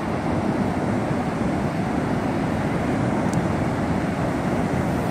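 Steady rushing of ocean surf at a beach, mixed with wind on the microphone.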